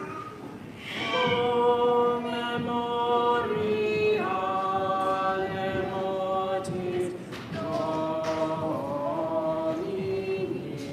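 Unaccompanied voices singing a liturgical chant, long held notes stepping from pitch to pitch, with short pauses between phrases about a second in and near the middle.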